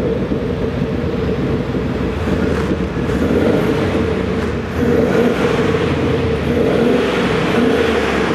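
Xhaust active sound exhaust speaker playing a simulated Mercedes G63 V8 engine sound over the running car: a steady deep rumble with a strong drone, growing louder about five seconds in.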